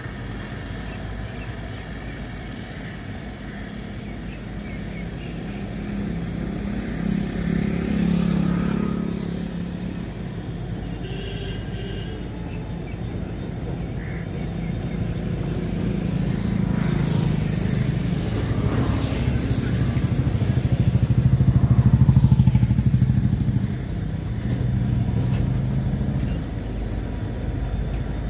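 Twin WDP4D diesel-electric locomotives running at low speed with a passenger train, their two-stroke EMD engines giving a steady low drone that grows louder as they come closer and is loudest about two-thirds of the way through.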